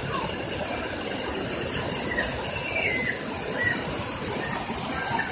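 Waterfall rushing steadily, with a few faint high chirps about two to four seconds in.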